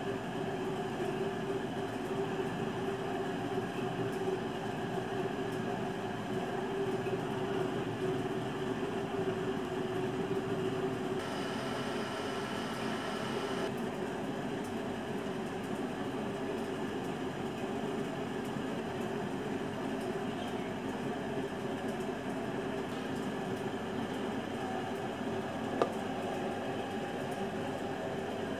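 A steady mechanical hum with a rushing noise and a few held tones underneath. A higher tone joins for about two and a half seconds near the middle, and a single sharp tick comes near the end.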